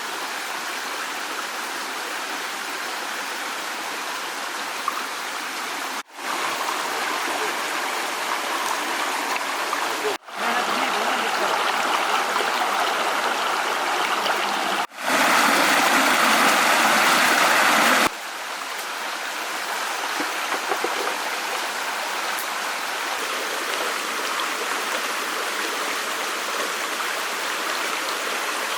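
Stream water running in a steady rush, broken by four sudden cuts between spliced stretches. It is loudest and brightest in the stretch just before the last cut, a little past halfway through.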